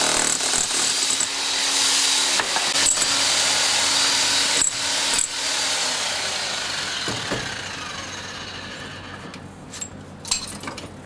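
Corded rotary hammer drill boring into a stone-and-mortar wall, running loud for about six seconds, then fading away. A few sharp knocks follow near the end.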